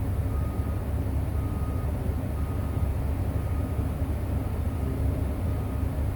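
Cat 349F excavator's diesel engine running steadily with a deep rumble, while a faint high backup-style alarm beeps about once a second.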